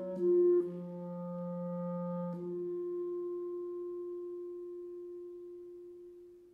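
Solo clarinet playing: a couple of quick notes, a low note held for about two seconds, then a long sustained higher note that slowly fades away to nothing.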